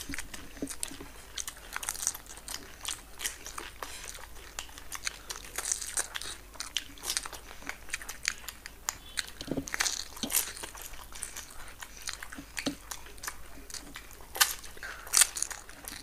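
Two people eating dahi puri fast: irregular crunching of the crisp puri shells and chewing, close to the microphone, with a few louder crunches near the end.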